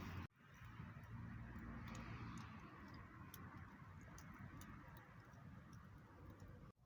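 Faint, irregular crackling of a small wood fire: scattered light ticks over a low rumble.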